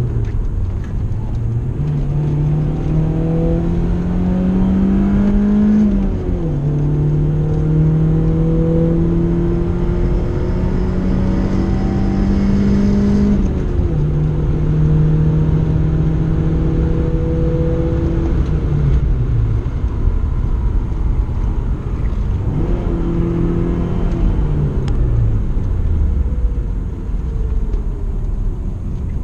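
BMW E36 3 Series engine heard from inside the cabin, driven on track: the note climbs steadily and drops sharply at upshifts about six and thirteen seconds in, then falls away twice as the car lifts off and slows, near twenty and twenty-five seconds, before rising again at the end.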